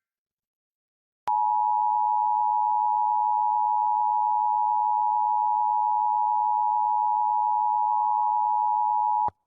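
Emergency Alert System attention signal: the two-tone alarm of 853 and 960 Hz sounded together. It starts about a second in, holds steady for about eight seconds and cuts off abruptly near the end. It announces an emergency alert message, here a required monthly test.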